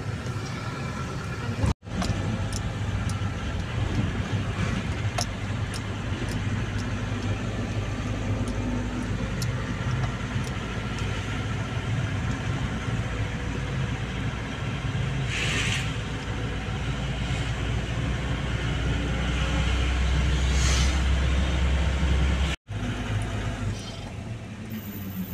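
Steady low rumble of a car driving slowly, heard from inside the cabin: engine and road noise, with a few light clicks and two short hisses. The sound drops out abruptly for an instant about two seconds in and again near the end.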